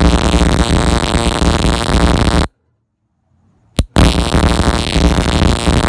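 Ignition coil on a test bench, fired by a Toyota ignition module and distributor, sparking rapidly as a loud, steady, crackling buzz. It stops abruptly about two and a half seconds in, a single snap follows about a second later, and then the buzzing resumes.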